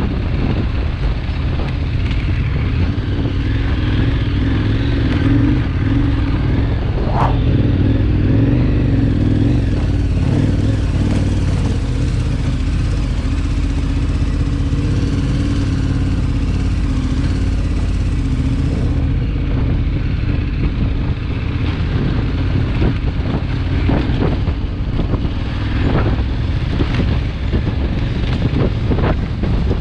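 Enduro motorcycle engine running steadily as it is ridden over a rough dirt track, heard from the rider's helmet camera, with short knocks and thumps from the bumps in the second half.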